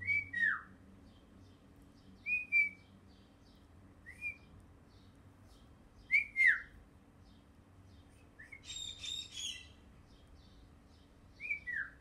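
A person whistling short phrases, each a brief note that drops into a falling slide, repeated about five times, and a bird answering with a burst of chirping about nine seconds in. Faint high bird chirps run underneath.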